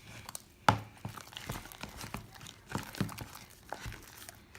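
Sticky fluffy slime being squished and kneaded by hand, making irregular wet clicks and crackles, the sharpest about 0.7 s in.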